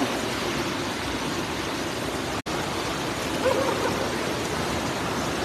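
Water rushing steadily through a concrete channel, with a faint voice about three and a half seconds in.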